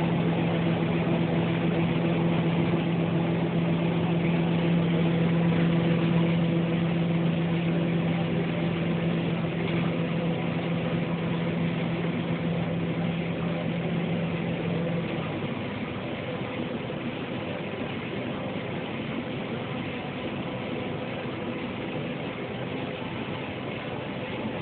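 Combine harvester running in a maize harvest: a steady machinery drone. A humming tone in it stops about fifteen seconds in, after which the machine runs a little quieter.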